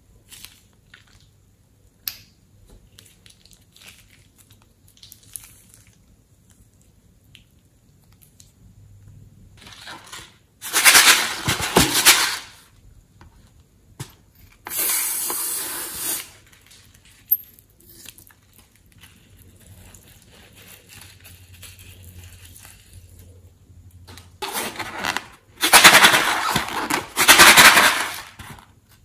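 Light handling clicks, then a pricked balloon emptying over the bowl: three loud stretches of rushing hiss, two short ones of about a second and a half, then a longer one of about three seconds near the end.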